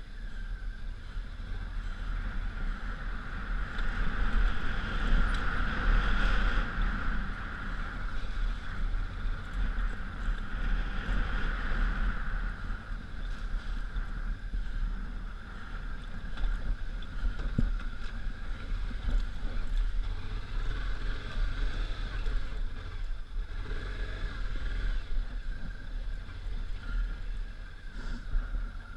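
Honda Africa Twin's 742 cc V-twin engine running while the motorcycle is ridden on rough off-road trails, with wind and road noise; it grows louder for a few seconds about four seconds in.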